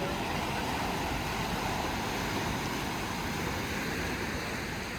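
Sea surf washing steadily, a continuous rushing with wind noise over it.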